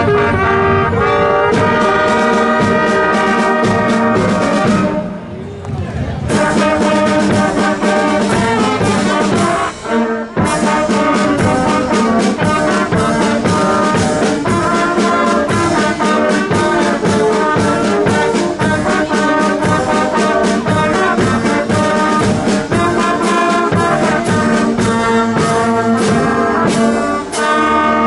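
Wind band playing a piece on trumpets, saxophones and flute, with short breaks in the playing about five and ten seconds in.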